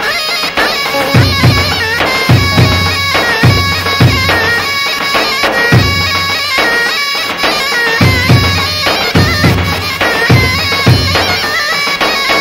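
Dabke dance music: a large double-headed tabl drum beats in pairs of strokes about once a second under a loud, reedy melody of held notes.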